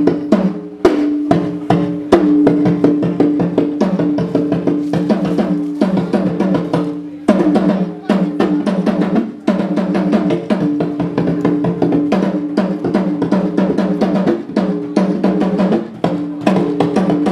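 Drums playing a fast, dense rhythm of many rapid strikes, with steady pitched tones sounding underneath.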